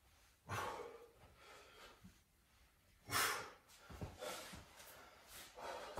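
A person breathing hard from exertion, with about four loud, breathy exhales a second or two apart; the strongest comes about halfway through.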